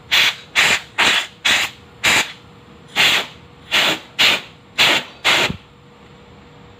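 Compressed-air blow gun fired in about ten short hissing bursts, blowing dust out of a dirty motorcycle air filter element. The bursts stop about five and a half seconds in.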